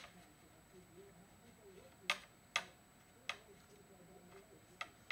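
A handful of short, sharp plastic clicks and knocks, spaced irregularly, as a pipe is handled and pushed into a drilled hole in a plastic pipe fitting.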